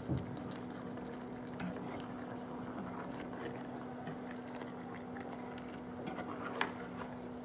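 Metal slotted spoon stirring raw chicken, curd and spices in a metal cooking pot, with soft wet squelches and a few light clinks and scrapes of the spoon against the pot, the sharpest near the end. A steady low hum runs underneath.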